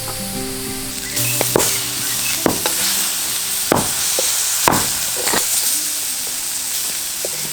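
Meat sizzling on a grill, with several sharp pops of spitting fat, over background music.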